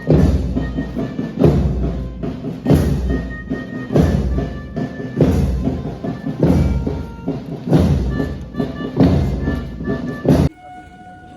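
March music with a heavy drum beat about every 1.3 seconds and held melody tones above it. It stops abruptly near the end.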